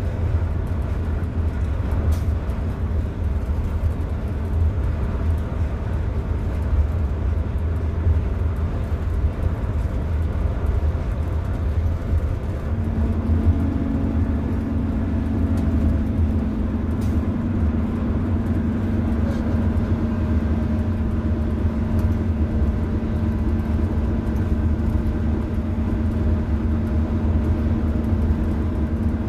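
Interior sound of a 2001 Orion V transit bus on the move: its Detroit Diesel Series 50 EGR inline-four diesel and Allison B500R6 automatic transmission running steadily with a low rumble. About halfway through, a steady droning tone joins in and holds.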